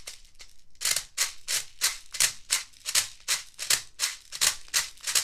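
Airsoft BB speed loader being pumped into a mid-cap magazine: a rapid, even run of plastic clicking and BB rattling, about three strokes a second, each push feeding five BBs. The strokes start about a second in.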